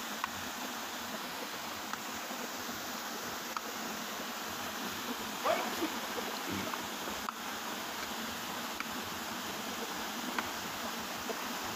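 Small waterfall pouring steadily into a rock pool, a constant rush of water, with a few faint clicks and one brief louder sound about halfway through.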